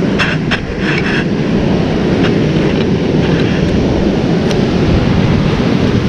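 Ocean surf breaking and washing among rocks on a beach, a loud, steady rushing roar, with a few brief hisses in the first second.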